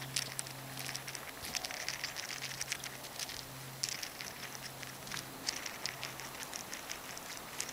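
Quick, irregular crisp clicking and crackling of sunflower seed shells as a chipmunk grabs seeds off a rock and stuffs them into its cheeks.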